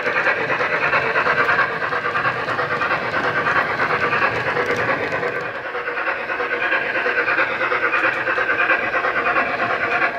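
Digitrains steam sound on a model Flying Scotsman's DCC sound decoder, played through a bass-reflex speaker in the boiler and a megabass speaker in the tender. It gives rapid, even exhaust chuffs as the locomotive runs.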